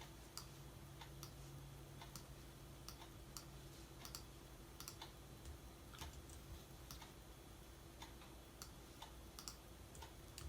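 Faint, scattered clicks of a computer keyboard and mouse, irregularly spaced, over a low steady hum.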